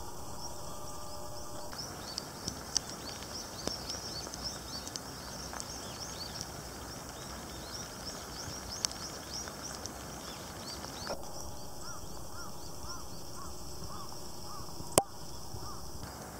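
Small birds giving many short, high chirps over a steady rush of stream water. A lower call repeats several times about eleven seconds in, and a single sharp click sounds near the end.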